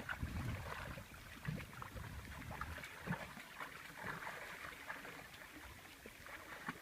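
Water sloshing and lightly splashing, with scattered small knocks and clicks.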